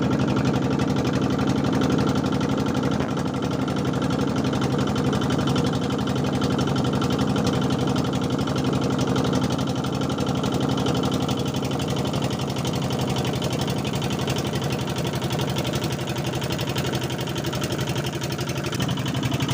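Small engine running steadily at a constant speed, a low hum with a fast, even beat.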